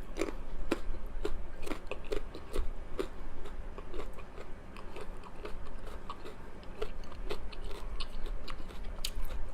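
A person chewing a steamed chicken momo close to the microphone: irregular wet smacks and clicks of the mouth, a few a second.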